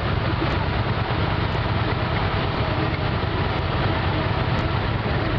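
V-twin cruiser motorcycle engine idling steadily while stopped in traffic.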